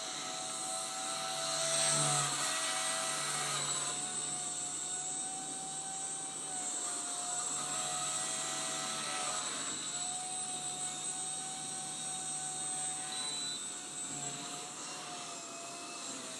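Blade 130 X micro RC helicopter running: a steady electric motor and rotor whine whose pitch dips and recovers a few times as main motor speed changes. It is loudest about two seconds in. The uploader hears a strange noise that changes with main motor speed.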